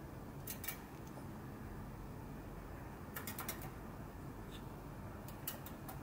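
Budgerigar's beak nibbling and clicking on the metal frame of a pair of glasses: sharp small clicks, two about half a second in, a quick run of about five a little after three seconds in, and a few more near the end.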